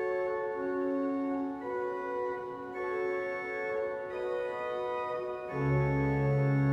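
Pipe organ of Gloucester Cathedral playing slow sustained chords that change every second or so; about five and a half seconds in, a deep bass note comes in and the organ grows louder.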